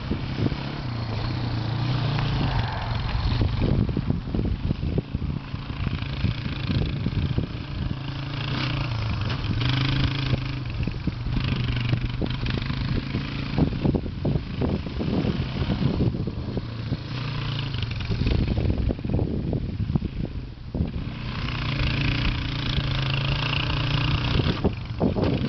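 Quad bike engine running as it is ridden around a grass field, its hum swelling and fading several times as it speeds up, turns and passes close by.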